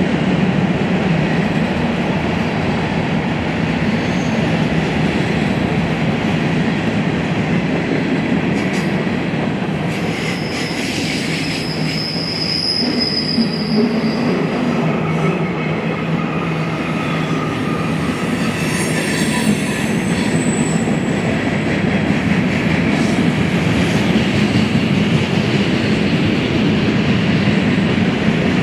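BNSF freight train rolling past, a steady rumble of steel wheels on rail. A couple of brief high-pitched wheel squeals come through in the middle.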